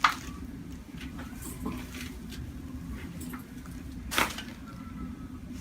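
Two short, sharp cracks about four seconds apart over a low steady room hum: joints popping during a chiropractic adjustment.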